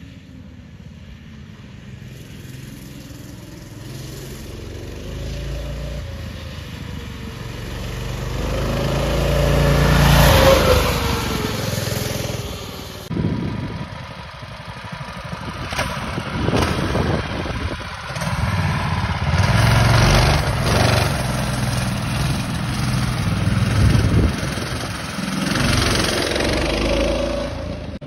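Small gasoline engines of a dual-engine ice-chest go-kart running as the kart drives, their pitch rising and falling with the throttle. The sound swells to its loudest about ten seconds in as the kart passes close. After an abrupt cut a little past halfway, the engines rev up and ease off repeatedly as the kart pulls away.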